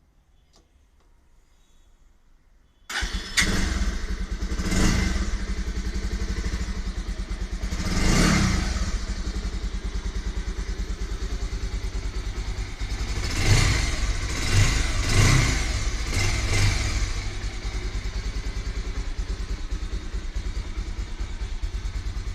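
Bajaj Pulsar 180's single-cylinder engine on its stock exhaust, started about three seconds in and then idling, with short throttle blips: one, another, then a quick cluster of several.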